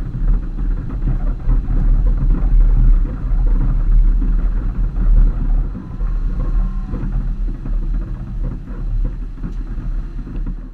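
Off-road vehicle driving slowly over a rocky dirt trail: a steady, heavy low rumble from the running vehicle and jolts on the rough ground, picked up by a camera mounted on the vehicle, with a few faint knocks.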